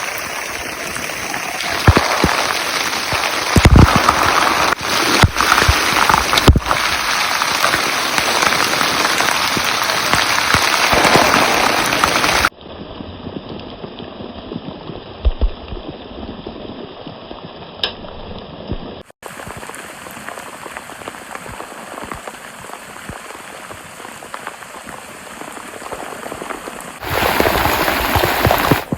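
Heavy rain falling in a steady hiss, with several sharp knocks in the first part. It drops abruptly to a quieter, duller rain sound partway through and comes back loud near the end.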